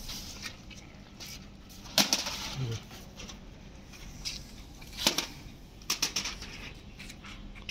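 Large kites rustling and crackling as they are handled and stood against a wall, with a few sharp crackles about two, five and six seconds in.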